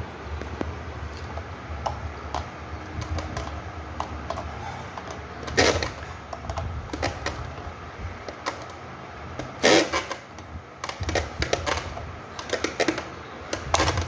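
Irregular small clicks and taps of metal fan parts and pliers being handled while the wiring and downrod are fitted to a ceiling fan motor. Louder knocks come about six and ten seconds in, over a steady low background rumble.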